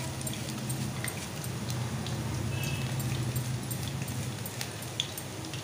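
Freshly sliced raw banana rounds frying in hot oil in a wok: a steady sizzle with scattered small pops and crackles, one sharper pop about five seconds in. A low steady hum runs underneath.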